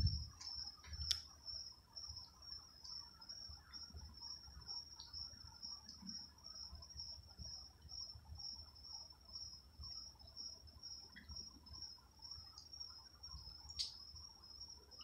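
Night insects trilling steadily at a high pitch, with a few faint sharp clicks, one about a second in and a clearer one near the end.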